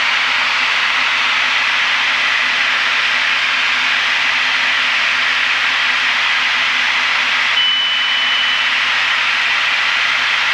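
Steady in-flight cockpit noise of a Piper PA32R single-engine aircraft: an even hiss with a faint low engine hum underneath. A short high beep sounds about three-quarters of the way through.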